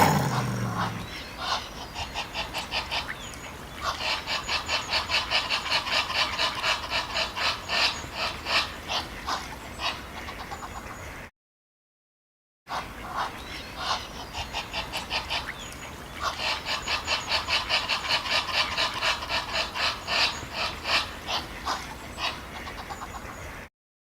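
An animal calling in a rapid series of short, quack-like notes, about five a second. The same run of calls is heard twice, each ending abruptly in dead silence.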